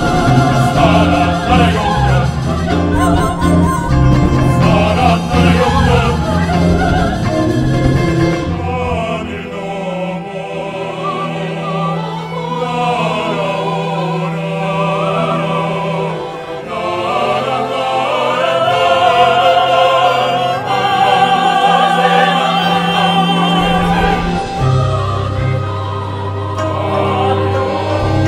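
Music with singing voices, held and wavering. A low accompaniment drops out about eight seconds in and comes back near the end.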